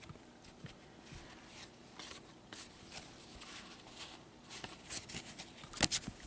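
Faint clicks and rubbing of hockey trading cards being handled and slid past one another, with a sharper snap near the end.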